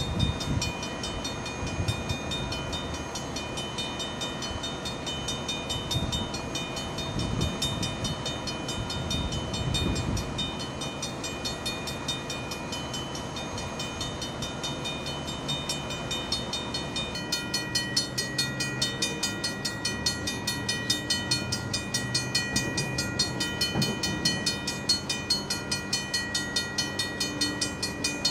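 Railroad crossing warning bell ringing in fast, evenly repeated strokes. The ringing turns sharper and louder about two-thirds of the way through. There is a low rumble underneath during the first ten seconds.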